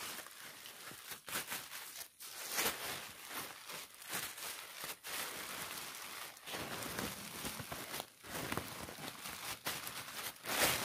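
Clear plastic sheet crinkling and rustling in irregular bursts as it is gathered and twisted closed by hand around a bundle of bananas and leaves.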